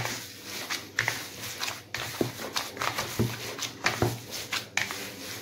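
Gloved hands kneading a moist chocolate crumb mixture in a plastic bowl: soft squishing and pressing, with a short light knock about once a second.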